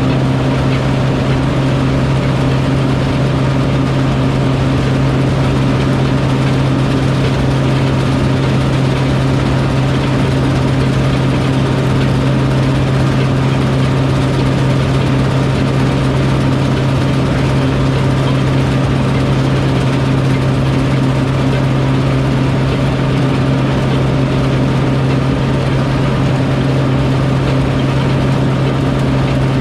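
Harvest machinery engine running at a constant speed: a loud, steady, unbroken low drone.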